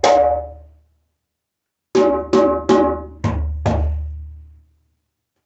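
Hand-struck djembe with a khadi-wood shell and a water buffalo calfskin head: one stroke that rings out, then after a pause a run of five strokes, the first three ringing higher and the last two with a deeper boom, each dying away.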